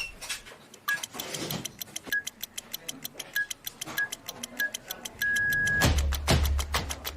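Keypad beeps from a video door intercom's code-entry panel: five short beeps at one pitch spaced irregularly, then one longer beep a little after five seconds in, as when an unlock password is keyed in. Background music with a steady ticking beat plays underneath.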